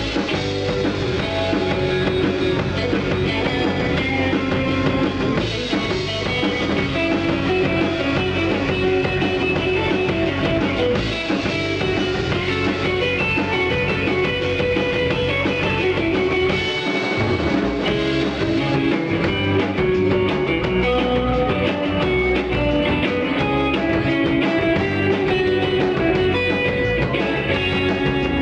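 Live instrumental surf rock: two electric guitars, electric bass and a drum kit playing together at a steady, loud level.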